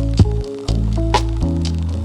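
Background music: held bass and keyboard-like chords with a steady beat, a strong hit about once a second and lighter ticks between.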